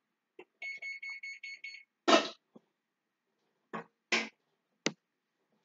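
A quick run of about eight high electronic beeps lasting just over a second. Then a few sharp knocks follow, the loudest about two seconds in.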